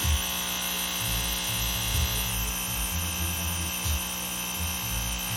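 Electric air pump running with a steady hum, pushing air through the lines to the self-burping buckets. A faint high whine in the hum stops a little over two seconds in, and irregular low rumbling runs underneath.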